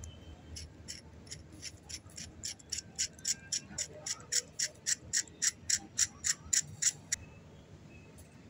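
A run of sharp, high clicks in an even rhythm, quickening to about four a second and growing louder, that stops abruptly about seven seconds in.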